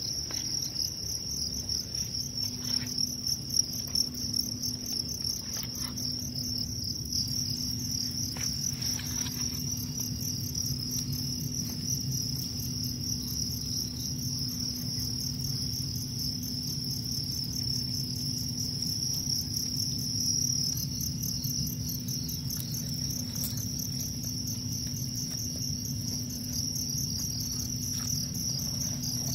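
Many farmed crickets chirping together in a steady, fast-pulsing trill, with a low steady hum beneath.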